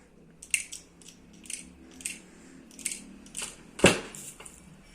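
Dried cloves dropped a few at a time into a small spray bottle: a string of light clicks and ticks, with one louder knock a little under four seconds in.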